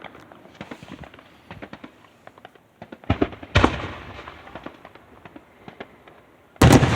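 Fireworks going off: a scatter of crackling pops, heavier bursts about three seconds in, and the loudest boom near the end.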